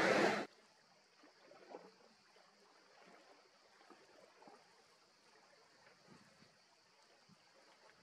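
A loud, steady rushing noise cuts off abruptly about half a second in. What follows is near silence with a faint steady hiss.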